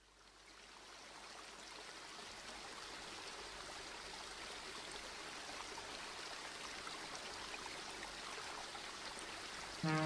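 Water splashing and trickling, a steady rushing that fades in over the first second or two. Music starts suddenly just before the end.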